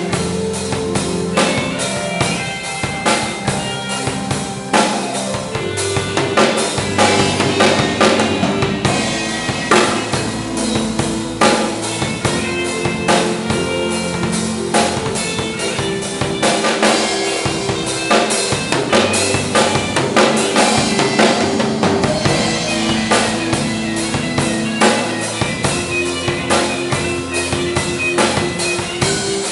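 Instrumental band music: drum kit, bass, keyboard and electric guitar playing together, with a steady driving drum beat.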